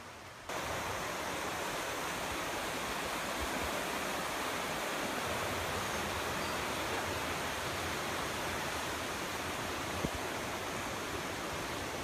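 Steady rush of running water, starting abruptly about half a second in, with one brief knock about ten seconds in.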